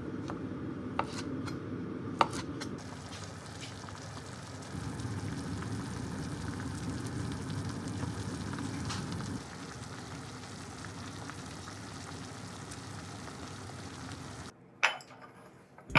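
A knife cutting on a cutting board, with two sharp knocks of the blade on the board in the first few seconds. Then a hot pot simmering in a cast-iron Staub braiser, a steady bubbling hiss, with a single sharp click near the end.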